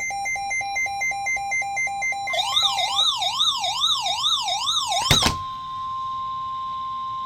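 Electronic weather-alert tones: rapid pulsed beeping for about two seconds, then a tone warbling up and down like a siren until a sharp thud about five seconds in. A steady single-pitch alarm tone follows, the NOAA Weather Radio warning alarm that comes before a broadcast severe thunderstorm warning.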